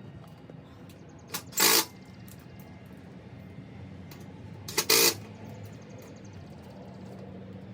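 Bosch 18-volt cordless drill driving screws home in short bursts: a quick blip and a burst about a second and a half in, and another burst about five seconds in, over a low steady hum.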